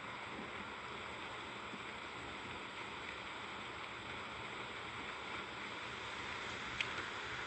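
Steady hiss-like background noise, with one short click near the end.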